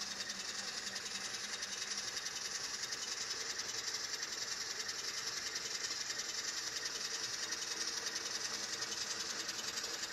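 Motor and gear drive of an N scale Atlas Alco S-2 model switcher running with a steady whirr and fast, even ticking, straining up a 2% grade with a heavy train.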